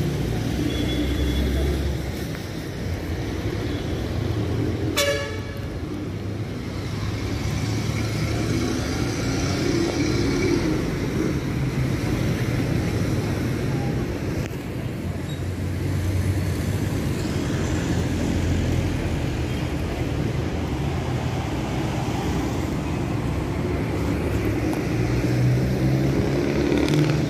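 City street traffic: cars and motorcycles running past with a steady engine rumble, and a short horn toot about five seconds in.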